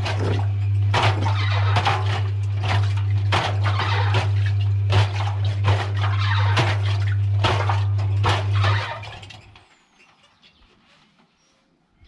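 Washing machine drum turning with balloons and cubes tumbling inside: a steady motor hum under repeated irregular knocks and rattles. The motor stops about nine seconds in and the sound dies away.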